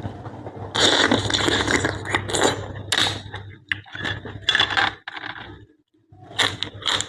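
Blood cockle shells scraping and clacking as they are pried open and handled, in a run of noisy scrapes and sharp clicks with a short pause about six seconds in.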